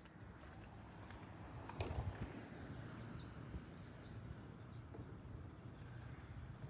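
Faint outdoor ambience: a steady low rumble of wind on the microphone, with a few soft knocks about two seconds in.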